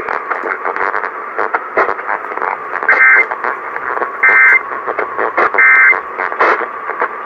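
Three short bursts of Emergency Alert System end-of-message data tones, harsh two-tone digital bursts about a second and a quarter apart, marking the end of the alert. They sound over the hiss and crackle of an AM radio broadcast.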